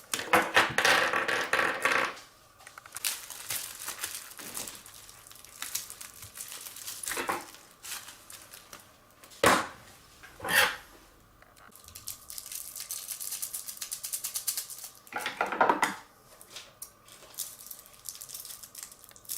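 Metal objects clattering, with a loud burst of clatter at the start and several separate sharp clicks and knocks after it; a faint steady whine runs through the second half.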